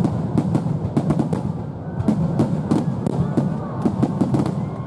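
Fireworks shells bursting in a dense barrage: many sharp bangs and crackles in quick succession, over a continuous low rumble.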